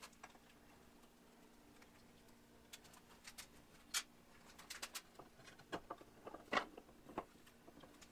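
Scattered light clicks and clinks of a wrench and loose metal parts being handled during disassembly of a Bridgeport milling machine, mostly in the second half, over a faint steady hum.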